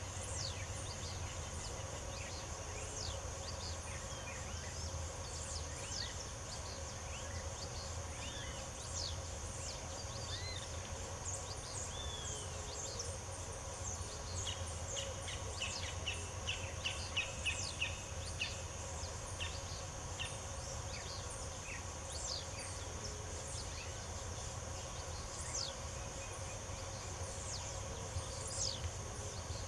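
Several small birds chirping and calling in scattered short notes, with a quick run of repeated notes around the middle, over a steady high-pitched insect drone.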